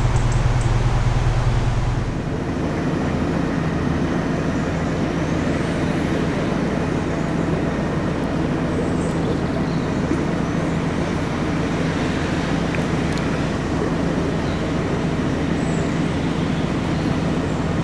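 Narrowboat's diesel engine running steadily under way. About two seconds in the note changes, the deep low hum giving way to a slightly higher, rougher running sound that then holds steady.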